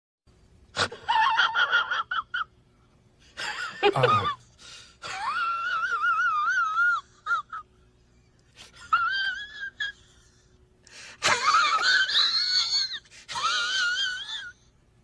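High, wheezy, wavering vocal sound effect heard in about five separate bursts, the pitch wobbling rapidly up and down like a strained, whining laugh or cry.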